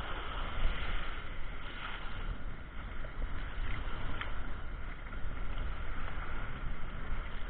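Rough sea: waves washing and breaking on the shore in a steady rush with a low rumble, muffled through a camera's waterproof housing.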